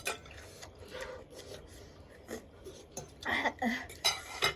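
Metal spoons scraping and clinking against noodle bowls as the last of the spicy noodles are scooped up. The scraping gets louder and busier about three seconds in.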